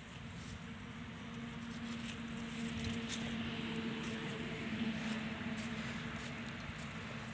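A steady motor hum that grows louder for about five seconds and then eases off, with light scuffing steps over dry leaves.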